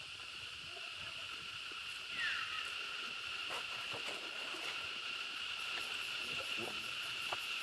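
Steady, high insect chorus buzzing without a break, with a short falling squeak about two seconds in and a few faint clicks.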